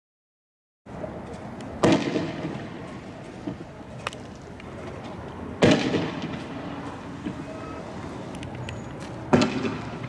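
Three loud, sharp bangs about four seconds apart, each with a short echoing tail, over a steady outdoor din. The sound cuts in from dead silence about a second in.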